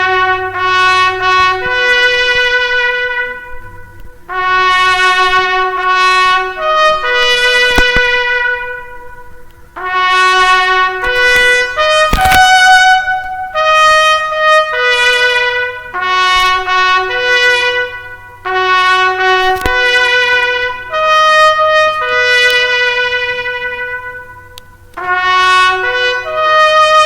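Solo brass instrument playing a slow melody one note at a time, in several phrases of held notes broken by short pauses.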